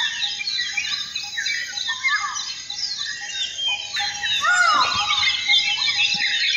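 A dense morning chorus of many small birds chirping and whistling over one another, with a short lower note repeated a few times a second. From about four seconds in, a few louder calls rise and then fall away.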